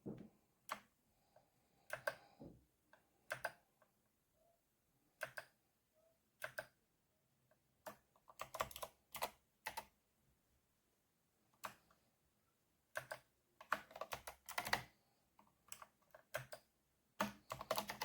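Typing on an 8BitDo Retro 87 mechanical keyboard: irregular keystroke clicks, some single and some in quick runs of several keys, with short pauses between.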